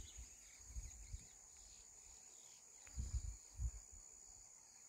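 Faint insects calling steadily, one even high-pitched drone, with a few soft low thumps about a second in and again around three seconds in.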